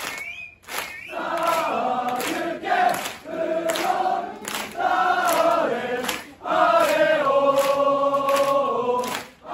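Crowd of football supporters singing a chant in unison, in short phrases with brief breaks, with rhythmic hand-clapping about twice a second.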